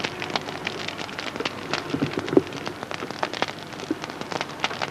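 Dense, irregular crackling: many sharp pops and ticks at uneven intervals over a steady hiss.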